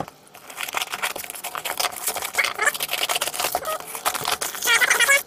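A cardboard shipping box being torn open by hand: packing tape and cardboard flaps ripping, with many quick scratchy crackles and a few short squeaks.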